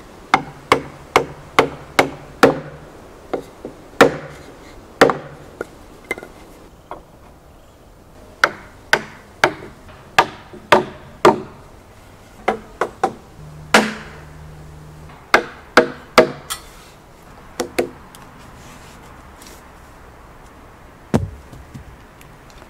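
A hammer striking a wooden block held against a metal tube, driving the tube into a drilled hole through a wooden beam. Sharp wooden knocks come in runs of several quick blows with short pauses between the runs.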